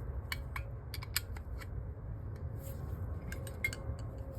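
Small metal carburettor parts and tools clicking and tapping as they are handled during a strip-down, a scatter of short sharp clicks, most in the first second and a half and a few more about three and a half seconds in, over a steady low hum.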